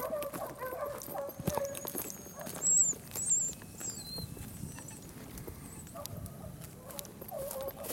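Dogs baying in long, wavering cries, which carry on through the first second and a half and come back near the end. A few high chirping bird calls come in the middle, the last one falling in pitch, with scattered light clicks throughout.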